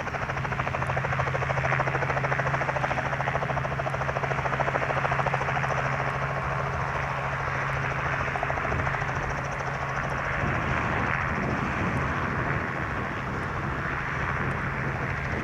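Propeller aircraft piston engine running steadily close by, with a strong low drone and a fast, even pulse.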